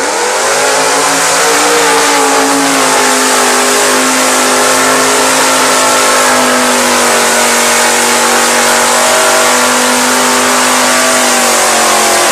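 A mud-racing sedan's engine is run at high revs through a mud pit. The pitch climbs in the first couple of seconds and is then held high and steady, over a dense hiss of spraying mud.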